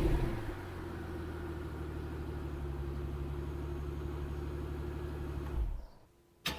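Mercedes S600 W221's twin-turbo V12 with its mufflers deleted, idling steadily as a rev dies away, then cutting off abruptly near the end.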